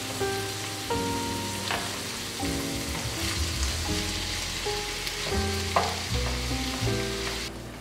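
Diced vegetables sizzling in a frying pan as a wooden spatula stirs them, with a couple of sharp knocks of the spatula against the pan. Soft background music with a slow melody plays throughout.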